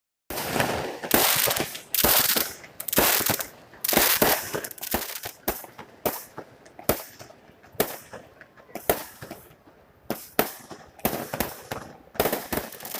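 New Year fireworks going off in quick succession: a string of sharp bangs, roughly one to two a second, each ringing out briefly.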